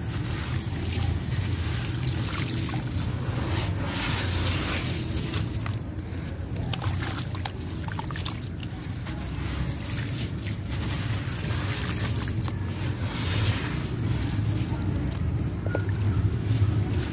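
Water sloshing and splashing in a basin as hands dip, rub and squeeze crumbly wet sand-cement chunks, with small crackles and trickles as grit breaks off into the water, over a steady low rumble.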